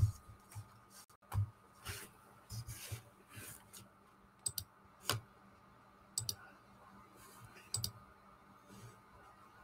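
Scattered sharp clicks and light taps at uneven spacing, the loudest right at the start: a computer mouse and keyboard being used.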